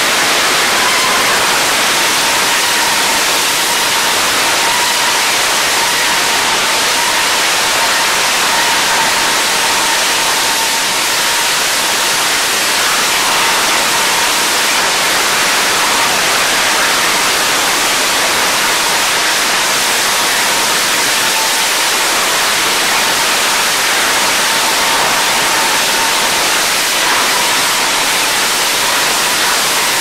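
Rocket engine of Armadillo Aerospace's Pixel quad vehicle firing continuously during a tethered hover: a loud, steady, rushing hiss of exhaust, with a faint steady tone underneath.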